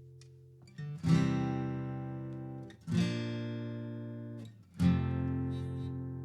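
Acoustic guitar strummed: three full chords about two seconds apart, each struck hard and left to ring and fade.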